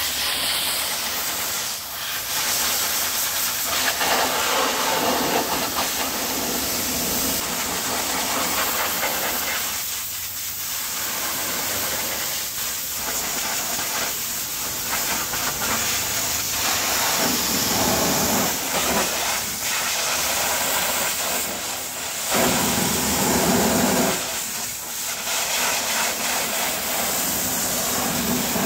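High-pressure water jet from a pressure washer wand blasting a car's wheel arch and fender: a steady hiss and spatter of water whose tone shifts as the jet moves over the bodywork and tyre.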